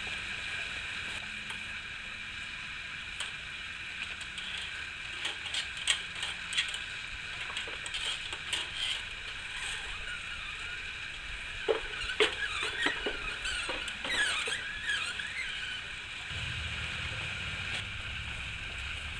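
Hands working wire cable and pulley hardware: scattered sharp clicks and taps, with a cluster of clicks and short squeaks roughly two-thirds of the way through, over a steady high-pitched background drone.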